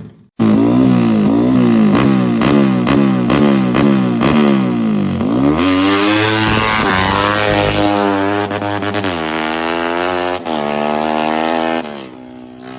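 Modified Yamaha Y15ZR's single-cylinder four-stroke engine with an aftermarket exhaust, revved in quick repeated blips of the throttle, about two a second. It then climbs in one long rise and holds high revs, eases to a lower steady speed, and drops back to a quiet idle near the end.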